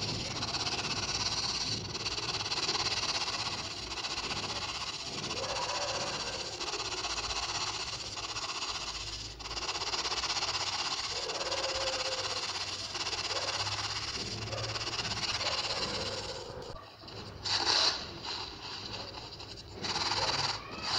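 Fingers rubbing crushed baking soda powder through the fine mesh of a plastic sieve, making a scratchy, gritty hiss in continuous rubbing strokes. The sound breaks off briefly twice near the end.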